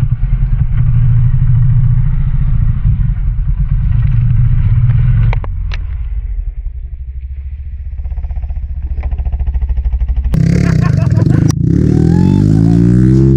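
Off-road motorcycle engine running under way. It drops back to a quieter note about five seconds in, with a couple of sharp clicks. About ten seconds in it gets louder again, its pitch rising and falling as the throttle is worked.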